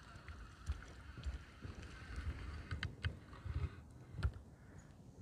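Outdoor wind buffeting the microphone in irregular low thumps, with a few light clicks about three seconds in.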